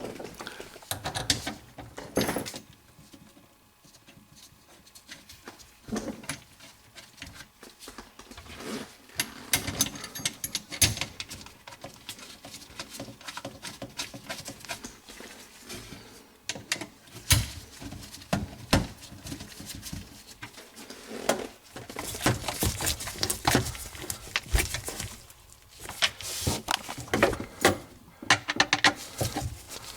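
Scattered clicks, taps and knocks of a garbage disposal and its plumbing fittings being handled and fitted into place, busier in the last several seconds.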